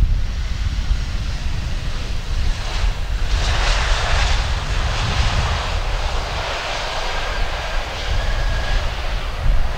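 Airbus A320's CFM56 jet engines on the landing rollout, swelling into a loud rush about three seconds in as they spool up for reverse thrust, then easing off.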